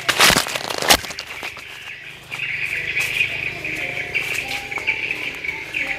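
A rustling scrape in the first second ends in one sharp knock. After a short lull, birds chirp steadily and high-pitched, with a few lower calls.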